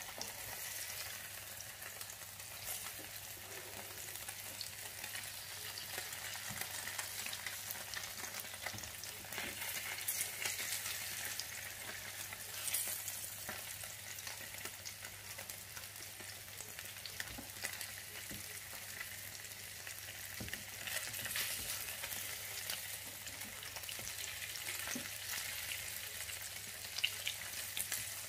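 Syrniki (cottage-cheese pancakes) sizzling in oil in a nonstick frying pan, with a steady hiss and now and then a short tap or scrape of a plastic spatula as they are turned over.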